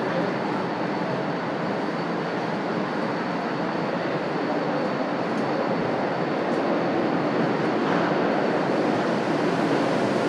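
Railway station platform ambience: a steady rumble of train and station machinery with a faint high whine, growing a little louder in the second half.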